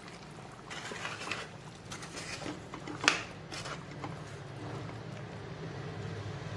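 Water pouring into mutton curry in a kadai, then a spoon stirring and scraping the pan, with a sharp clink of spoon on pan about three seconds in and a few lighter knocks after. A low steady hum runs underneath.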